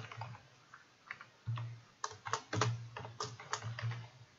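Typing on a computer keyboard: scattered keystrokes, with a quick run of them about two seconds in.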